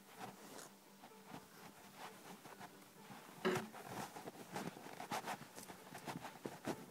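Handling noise: irregular light clicks, knocks and rustling, with one louder knock about three and a half seconds in.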